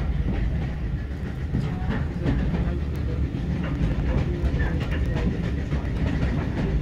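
Steady low rumble of a moving railway carriage heard from inside the coach, with scattered sharp clicks and clatter from the wheels on the track.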